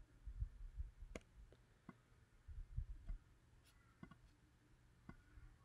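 A handful of faint, scattered computer mouse clicks with a few soft low thumps, over near silence.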